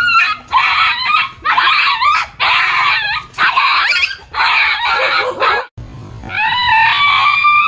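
Small black puppy squealing and yelping in a string of about six high, sharp cries, then a long high whine near the end.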